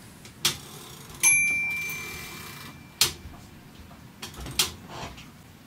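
Royal KMM typewriter's carriage being handled with the carriage release lever: several sharp clicks and knocks, and one ring of the carriage bell about a second in that rings on for about a second and a half.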